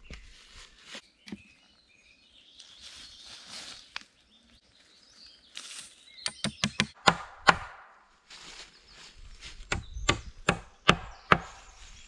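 Hand tools striking wood: a quick run of about eight sharp knocks about six seconds in, then five more, more widely spaced, near the end, with rustling and scraping before them.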